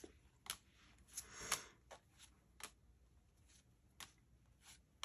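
Tarot cards being handled by hand: faint, irregular taps and slides of card on card, about ten, with a slightly longer swish about a second and a half in.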